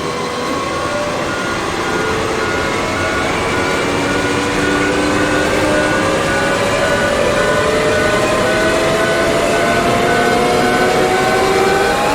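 Distorted riser sound effect: a dense, gritty noise bed under tones that glide slowly upward, with a short beep repeating about every three-quarters of a second. It grows gradually louder as it builds.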